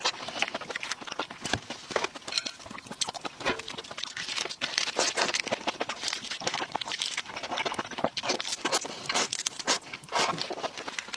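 Red shrimp being eaten: a dense run of irregular crackles and clicks from the shrimp being peeled and chewed.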